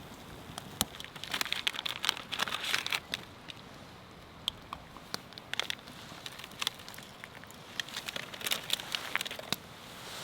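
Burning firewood crackling, with sharp irregular pops that come in dense runs a second or so in and again near the end.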